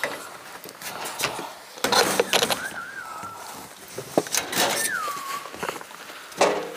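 Scattered knocks, taps and scuffs, with two brief high squeaks: a wavering one in the middle and one gliding down in pitch shortly after.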